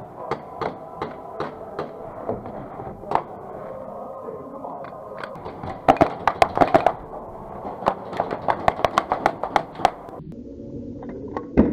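Airsoft electric rifle, a G&G Piranha SL, firing: a few single shots, then a quick string about halfway through and a longer run of rapid shots later, each a sharp clack.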